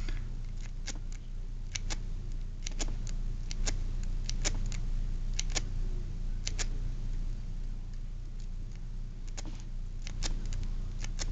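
Light metal clicks of a half-diamond lock pick working the pins of a Hampton 5-pin lock, in irregular single clicks and quick pairs, over a steady low hum.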